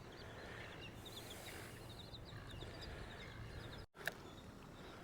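Faint outdoor ambience with a bird chirping a quick run of short, high notes, which fades out before the sound cuts out briefly near the end.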